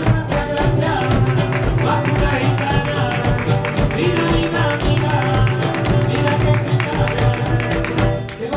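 Flamenco music: a Spanish guitar playing, with sharp percussive clicks and taps from footwork, hand-claps or box drum, and a voice singing over it. The music dips briefly near the end.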